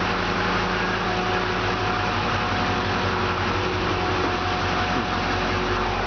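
A 2012 Chevrolet ambulance idling with a steady engine hum, a very quiet rig, under an even fan-like hiss with a faint steady whine.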